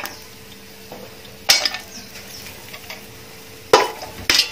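Whole spices (bay leaf, cinnamon, cloves, peppercorns) dropped into hot vegetable ghee in a metal pot, each landing with a short sizzling crackle. There are three of them: one midway and two close together near the end.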